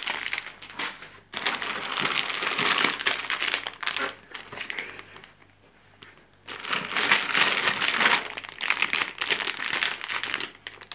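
Crinkling of a shiny plastic-foil blind-bag packet as it is squeezed and handled, in two spells with a brief near-quiet pause in the middle.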